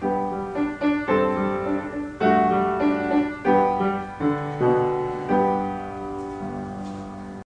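Piano playing a slow passage of struck chords, each left to ring and fade before the next, until the sound cuts off suddenly near the end.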